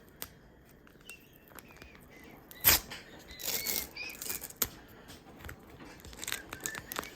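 Foil trading-card packet being worked open by hand: scattered crinkles and clicks, a sharp snap a little under 3 s in, then bursts of crinkling with small squeaks as the wrapper is pulled apart.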